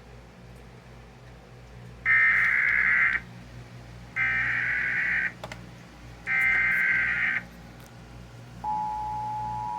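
Emergency Alert System SAME header: three one-second bursts of screeching digital data tones about a second apart, then the steady two-tone attention signal starting near the end, all over a faint low hum. Together they announce a new alert, here a severe thunderstorm warning.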